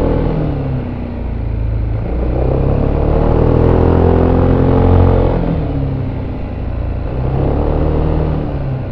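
VOGE SR4 MAX's engine running through its stock exhaust, heard on board while riding. The revs ease off at first, then climb for a few seconds to a peak about five seconds in, drop away, and pick up briefly again before easing off near the end.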